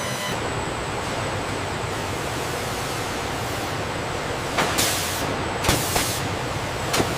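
Steady rushing industrial noise. In the second half come several short, sharp hisses and knocks.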